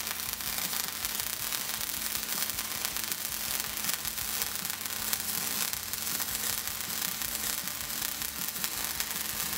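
MIG welding arc from a Millermatic 211 running steadily as a bead joins a steel end cap to a thick-walled steel pipe: a continuous crackling sizzle, with a low steady hum underneath.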